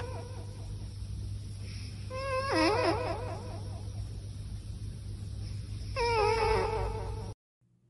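Sleeping tabby cat snoring into a microphone: a squeaky, wavering, pitched sound on its breaths, about every three and a half seconds, over a steady low hum. The sound cuts off suddenly near the end.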